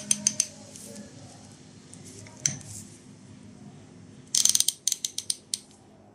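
FLAG 1/2-inch drive ratchet handle clicking as its head is turned back and forth by hand, the pawl snapping over the gear teeth. There are a few clicks at the start and a single click in the middle, then a quick run of rapid clicks about four seconds in.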